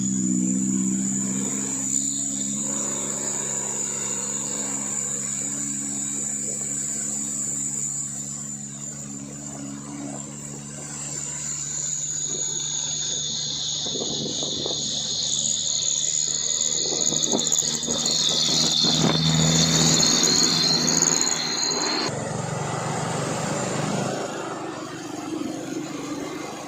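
Toyota Dyna truck engine labouring on a climb, a low steady running note that is strongest in the first couple of seconds and swells again about three-quarters through before cutting off abruptly.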